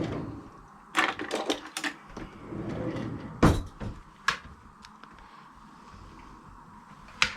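Kitchen clatter from cookware being handled: a quick cluster of clicks and knocks about a second in, a sharp loud knock around the middle, another soon after, and a single knock near the end.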